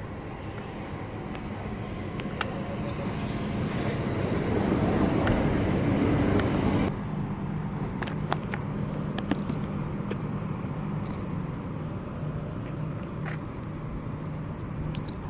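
Vehicle noise: a rumble that builds for about seven seconds and then cuts off suddenly, leaving a steady low engine drone with a few faint clicks.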